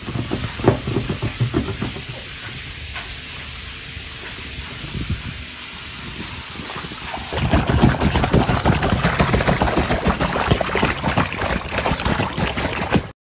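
Water splashing and sloshing in a small inflatable paddling pool as a small poodle gets into it. About seven seconds in, the splashing turns louder and busier with many quick splashes.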